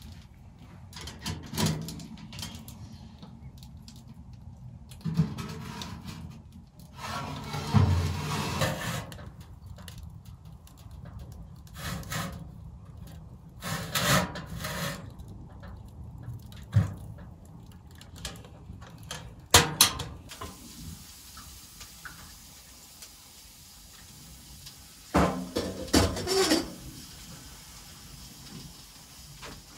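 Intermittent handling sounds: wood knocking and rubbing as pieces are fed into a small metal wood stove, broken by a few sharp knocks and clicks, with a burst of clatter a few seconds before the end.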